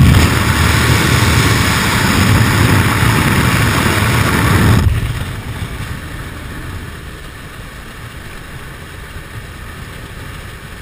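Rush of wind and aircraft engine noise through the open door of a small jump plane, loud and even. About five seconds in it drops abruptly to a quieter, steady engine drone in the cabin.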